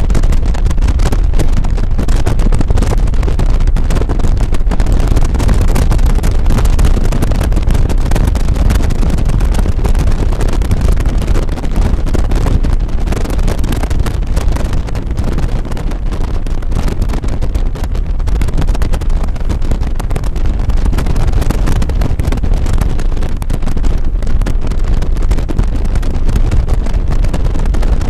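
Loud wind buffeting the microphone on a touring motorcycle at cruising speed, with the motorcycle's engine running steadily underneath.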